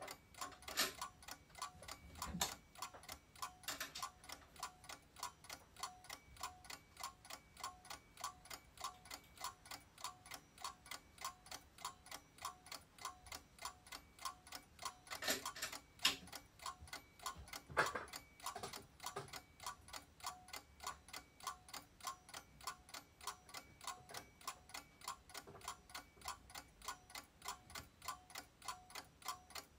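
Steady clockwork ticking, about two ticks a second, from a darkroom timer or clock. A few louder clicks and knocks from handling the enlarger and easel stand out over it, the loudest about 16 and 18 seconds in.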